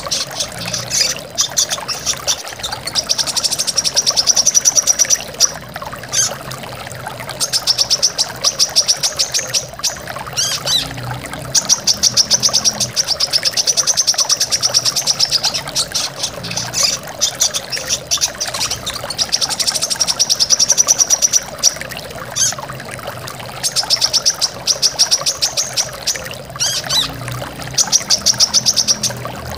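Brown-throated sunbird (kolibri kelapa) singing in bursts of fast, high trills, each lasting one to a few seconds and repeated with short gaps. Steady rushing waterfall water runs underneath.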